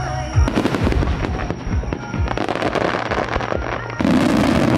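Fireworks display going off without a break: many overlapping bangs with dense crackling from the bursting shells, growing louder and thicker about four seconds in.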